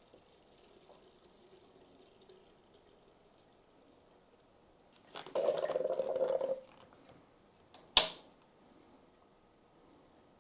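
Coolant pouring into a PC water-cooling loop's reservoir for about a second and a half, then one sharp click a moment later.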